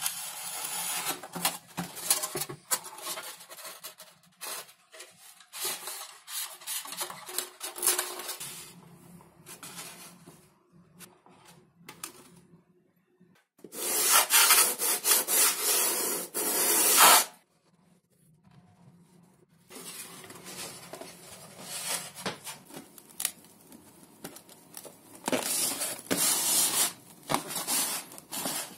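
Hand work on XPS foam board: irregular rubbing and scraping as the foam parts are handled and pressed. About halfway through comes a few seconds of fast sandpaper-on-block strokes, the loudest part.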